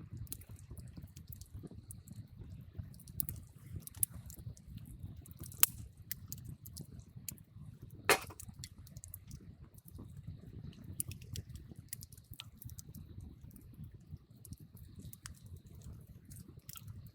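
Wood campfire crackling: scattered sharp pops and snaps over a low steady rumble, with two louder pops about five and a half and eight seconds in.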